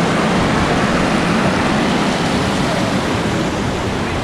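Steady rushing water, an even hiss at constant level.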